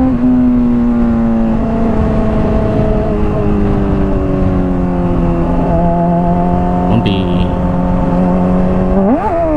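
Honda CBR600RR's inline-four through a Hotbodies Stinger slip-on exhaust, cruising with its pitch slowly falling, then a quick rev up and back down near the end. Wind rushes over the helmet-mounted microphone.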